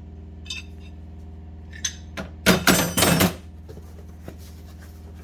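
Large steel wrenches clinking and clattering as they are handled in a metal tool box drawer, with a few light clicks, then a louder clatter about two and a half seconds in. A steady low hum sits underneath.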